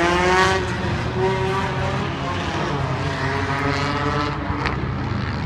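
Stock car engines running in the pits: a steady low idle under one or more engines revving, with the pitch rising at the start and wavering up and down through the middle.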